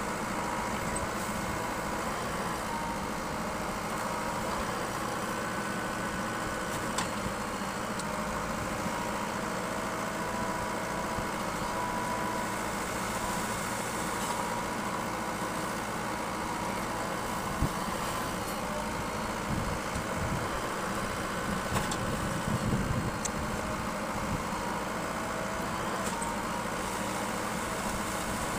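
JCB backhoe loader's diesel engine running steadily, with a few sharp knocks and clanks, most of them clustered about two-thirds of the way through.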